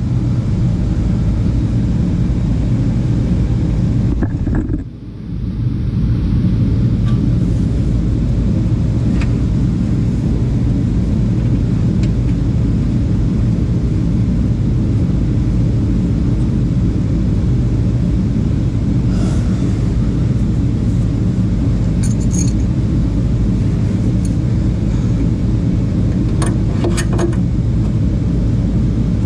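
A steady low mechanical rumble with a hum in it runs throughout, dropping away briefly about five seconds in. A few light metallic clinks of tools sound in the second half.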